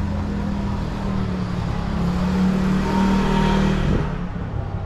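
A motor vehicle's engine passing close by, growing louder and then dropping away about four seconds in.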